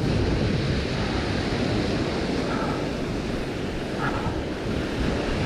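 Steady rushing noise of wind buffeting the camera's microphone, heaviest in the low rumble.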